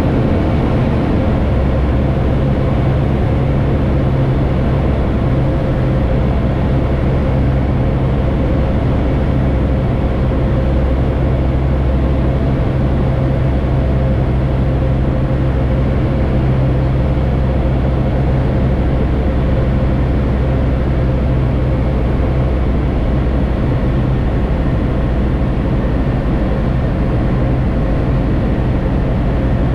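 Aeroprakt A-22 Foxbat light aircraft's engine and propeller running steadily in flight, heard from inside the cockpit.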